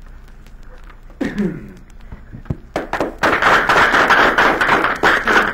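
A roomful of people clapping, starting about three seconds in and lasting around three seconds. A short voice sound comes about a second in, before the clapping.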